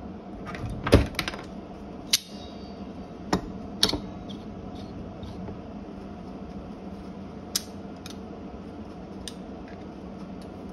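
A few sharp clicks and taps of small hard objects being handled on a wooden table, the loudest about a second in, over a steady machine hum.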